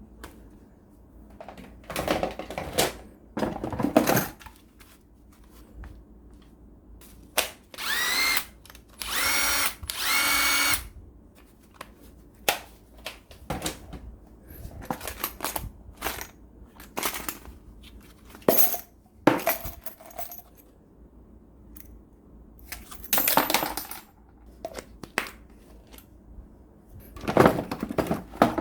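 Tools being handled, with scattered clicks and knocks of hard objects being picked up and set down. Twice, about eight and nine seconds in, a small handheld power drill's motor runs for a second or so, its whine rising as it spins up.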